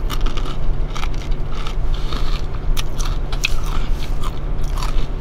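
A person chewing kettle-cooked potato chips with the mouth close to the microphone: irregular crisp crunches, several a second, over a steady low hum.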